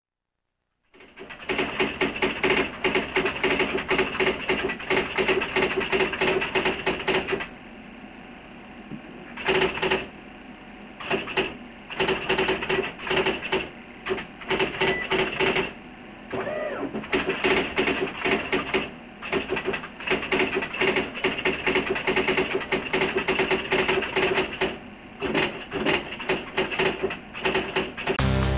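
Electric typewriter being typed on: fast runs of key strikes in bursts, with a steady whir of the machine between them. The typing pauses for about two seconds near a third of the way in.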